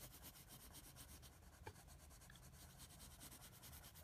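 Faint scratching of a graphite pencil shading on lined notebook paper, with a single light tick near the middle.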